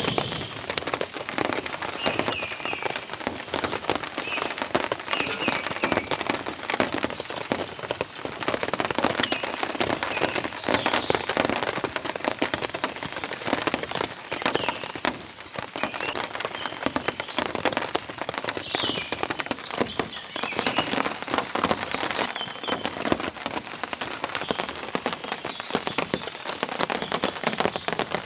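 Heavy rain falling steadily, with many close drops striking a surface. Birds chirp now and then in the background.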